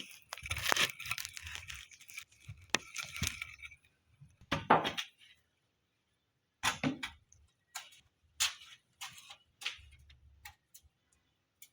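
Handling and working timber for a wooden cage frame: rustling and scraping for the first few seconds, then a string of sharp, irregular knocks and clinks from about halfway through.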